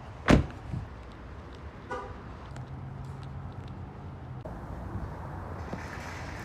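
A loud thump just after the start, then a brief car-horn toot about two seconds in, over a low steady car hum.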